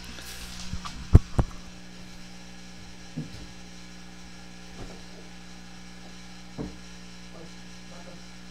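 Steady electrical mains hum, with two loud thumps in quick succession about a second in and a few faint knocks later.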